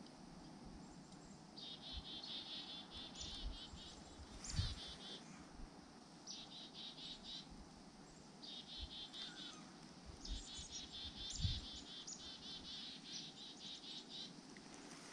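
Small birds giving rapid, high twittering trills in repeated bouts of a second or two, with two low thumps about four and eleven seconds in.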